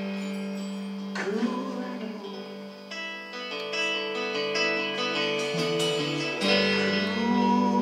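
Live band playing with strummed acoustic guitars, banjo, electric guitar and bass, holding sustained chords.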